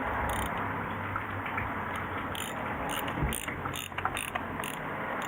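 Ratchet wrench clicking as it is swung back and forth, about three clicks a second, working a bolt during an engine oil change.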